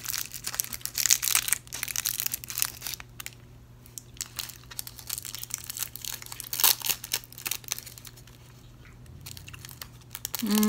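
A candy wrapper crinkling and tearing as a coffee-flavoured candy is opened and handled: dense crackling for the first few seconds, then sparser rustles with one sharp crack about two-thirds of the way through.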